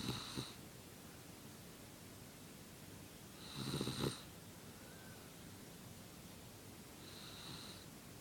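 A baby snoring: three snores about three and a half seconds apart, the last one fainter.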